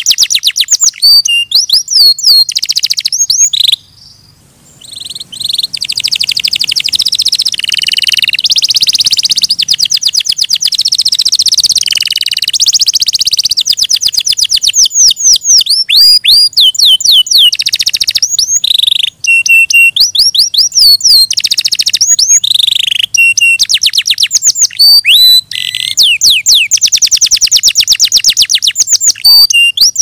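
Domestic canary singing a long, loud song of rapid trills and rolls, switching between phrases of different speed and pitch, with a short pause about four seconds in.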